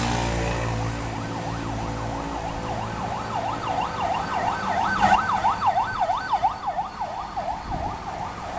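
Electronic police siren of a toy police car, a fast yelping wail that rises and falls about three times a second.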